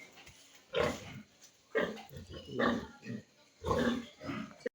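Pigs grunting, four or five separate short calls about a second apart.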